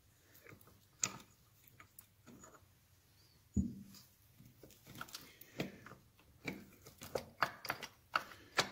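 Metal gears and shafts of a Triumph four-speed gearbox clicking and clinking as the gear cluster is worked by hand into the casing, with a dull knock about three and a half seconds in and quicker, sharper clicks in the last few seconds.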